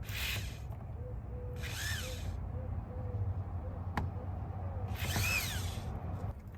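Power drill driving concrete anchor screws into brick, in three short bursts of the motor spinning up and winding down, with a sharp click about four seconds in.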